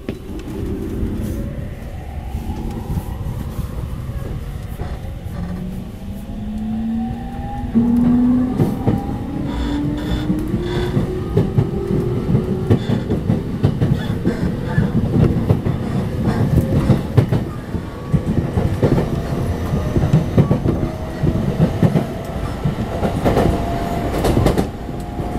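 JR East E231 series 500 Yamanote Line commuter train pulling away from a station, heard from inside the carriage: a motor whine climbs in pitch from about five seconds in as the train accelerates, then holds level, over a steady rumble and the clacking of wheels over rail joints.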